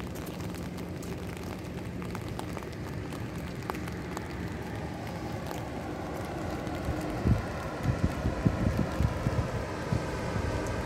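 Steady rain hiss, with gusts of wind buffeting the microphone in irregular low rumbles over the second half.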